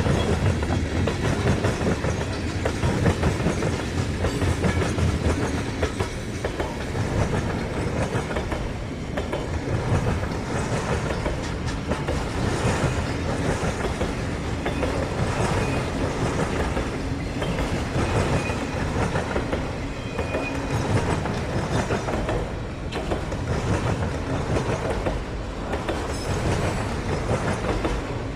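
Freight cars of a manifest train rolling past, steel wheels clicking over rail joints in an uneven rhythm, with a couple of faint brief squeals about two-thirds of the way through.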